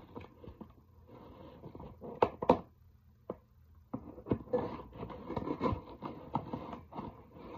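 Scissors cutting and scraping along the packing tape of a cardboard shipping box. There are two sharp snips a little over two seconds in, then a busy run of scratchy scraping and snipping through the second half.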